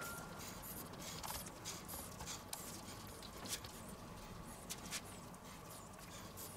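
Gloved hands pressing and patting raw minced meat into a loaf on a wooden board: faint, scattered soft pats and ticks.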